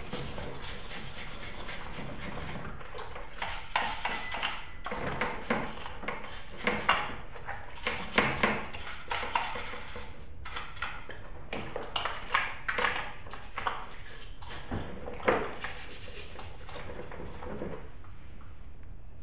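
A brush scrubbing a chainsaw's housing wet with degreaser, in uneven bursts of scratchy strokes.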